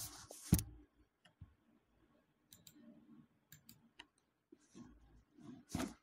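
Faint computer mouse clicks and key taps: a few scattered small clicks, with two louder knocks right at the start.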